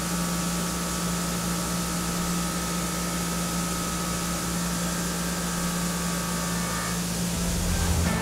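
Doosan DNM 5700L vertical machining center milling Ti-6Al-4V titanium under flood coolant with a half-inch chamfer mill: a steady hiss of coolant spray over a steady whine from the spindle and cutter. Near the end the whine fades and a low rumble comes in.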